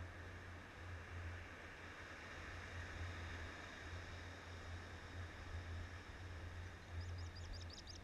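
Steady rush of surf washing up the beach. About seven seconds in, a bird gives a quick run of short, high chirps.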